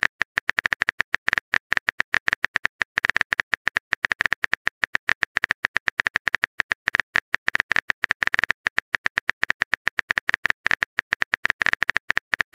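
Phone keyboard typing sound effect: rapid, uneven taps, many a second, as a text message is typed out.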